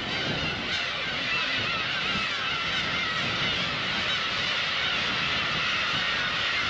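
A dense colony of black-tailed gulls calling over one another, a constant din of many overlapping cries, with a low rumble underneath.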